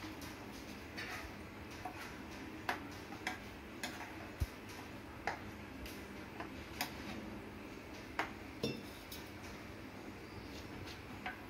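A spoon knocking and scraping against a non-stick kadai as a runny capsicum masala is stirred: about a dozen irregular light clicks over a steady low hiss.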